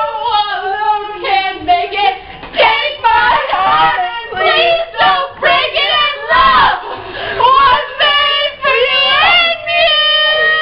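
Two or three young women singing a pop love song together, loud and high, with a few long held notes near the end.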